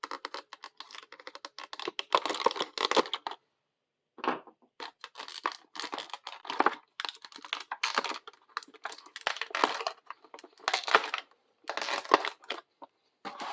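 Action-figure packaging being opened by hand: cardboard and plastic crinkling, tearing and clicking in irregular bursts, with a few short pauses.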